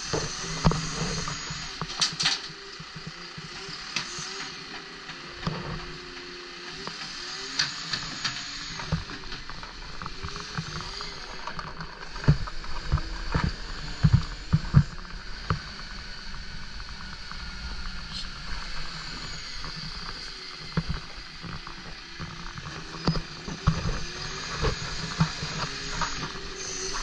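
Automated side-loading rubbish truck at work: its engine and hydraulic bin arm run as it grabs, lifts and tips wheelie bins. Repeated sharp clunks and clatter of the bins come throughout, thickest about halfway through and again near the end.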